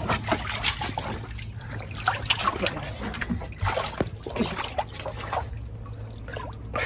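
Shallow seawater splashing and sloshing in a rock pool as a gloved hand gropes between the stones, in irregular short splashes with small knocks.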